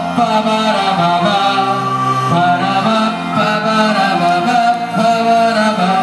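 Live band playing amplified folk-rock music, a melody of long held notes over changing low notes, with the crowd singing along.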